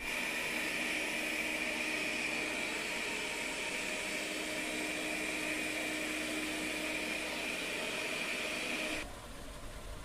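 Lydsto W2 robot vacuum running at maximum suction on a shag rug: a steady fan whine with a high tone running through it. About nine seconds in it cuts off abruptly to a quieter steady hum.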